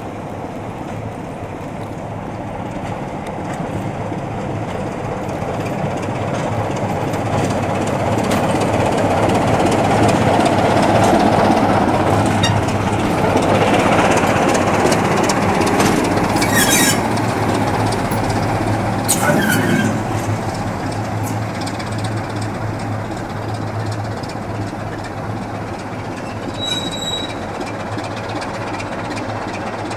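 BR Class 27 diesel locomotive's Sulzer engine running steadily as it approaches, passes close by and draws away, loudest a little before halfway. Just after halfway its wheels squeal briefly twice on the pointwork.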